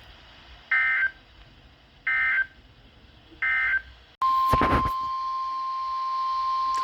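NOAA Weather Radio broadcast: three short, buzzy digital data bursts of the SAME end-of-message code, marking the end of the warning message. About four seconds in there is a brief burst of noise, then the steady 1050 Hz warning alarm tone begins, announcing the next alert.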